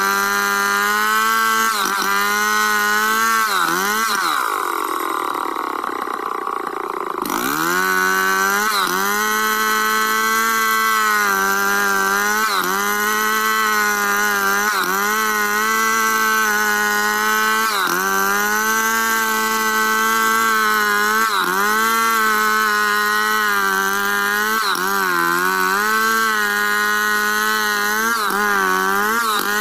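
Stihl chainsaw ripping lengthwise through a squared log in freehand milling, running hard under load. Its pitch dips and recovers every couple of seconds as it bogs in the cut. From about four to seven seconds in it revs higher and lighter before settling back into the cut.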